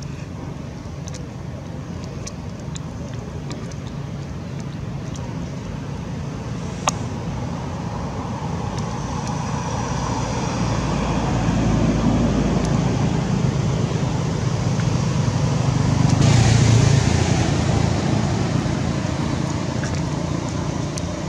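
Low rumble of road traffic that slowly builds to a louder passing vehicle about sixteen seconds in, then eases off, with one sharp click about seven seconds in.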